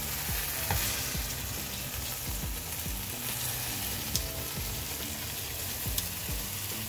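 Pork belly frying in a hot pan, a steady sizzling hiss with a few light clicks.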